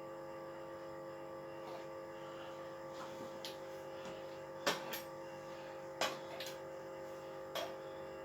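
Quiet background music with steady held tones, broken by a few light taps, about five in all, spread through the middle and end.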